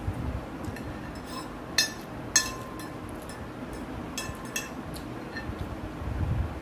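Metal fork clinking and scraping against a ceramic plate while picking up noodles: two sharp, ringing clinks about two seconds in, then a few softer taps.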